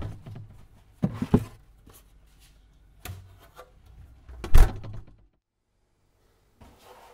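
Refrigerator being opened and rummaged: knocks and thuds of the door and of things handled on its shelves, the heaviest thud about four and a half seconds in, over a low steady hum that stops about five seconds in.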